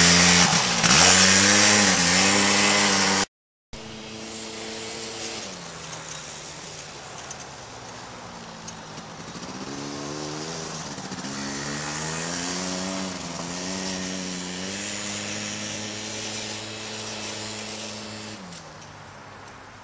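Four-wheeler (ATV) engine revving up and down as it is ridden, its pitch repeatedly climbing and falling. It is loud for the first three seconds, cuts out briefly, then carries on more quietly, speeding up and slowing down several times.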